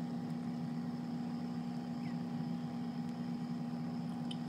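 Steady low mechanical hum, with a fainter high whine over it and one faint click near the end.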